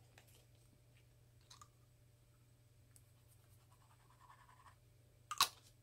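Blending solution being applied by hand to Yupo paper: faint scratching and a few small ticks, with one sharper click near the end.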